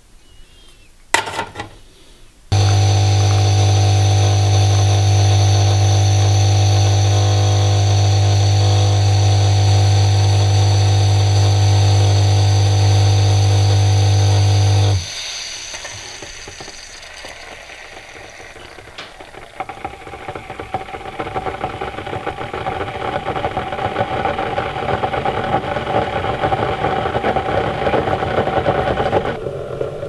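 Single-cup coffee maker brewing. After a couple of clicks, its pump starts with a loud, steady buzzing hum, runs for about twelve seconds and cuts off abruptly. Coffee then streams and sputters from the spouts into the cup, growing louder toward the end.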